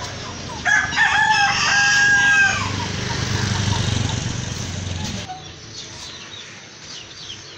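A rooster crows once, about a second in, a call of roughly two seconds ending on a long held note. A motorcycle engine runs low underneath and drops away about five seconds in.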